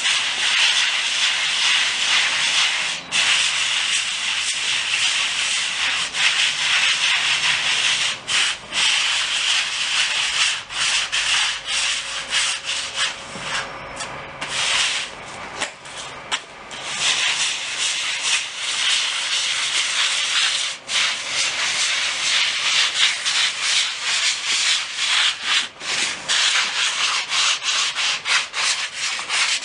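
Sanding a surface by abrasion, as in preparing it for FRP waterproofing: a continuous scratchy rubbing that stops briefly now and then and eases off for a few seconds midway.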